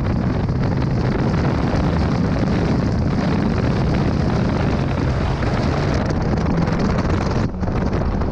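Honda Civic Type R's turbocharged four-cylinder engine driven hard through an autocross course, mixed with heavy wind buffeting on the outside-mounted microphone. The sound dips briefly about seven and a half seconds in.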